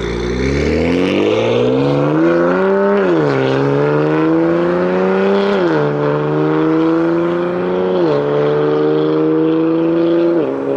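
BMW F80 M3's S55 twin-turbo inline-six with an equal-length exhaust accelerating hard: the engine note climbs in pitch through each gear and drops sharply at four upshifts, about every two and a half seconds.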